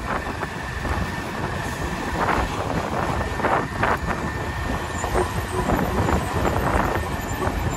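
Vehicle running along a road: a steady low engine and road rumble with a faint steady whine above it and a few brief knocks.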